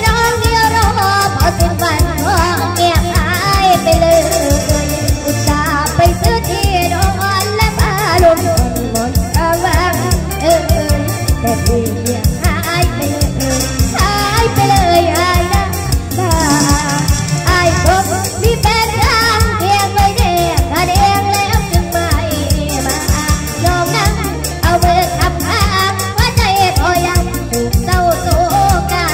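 A young girl singing a Thai song into a microphone over backing music with a steady beat.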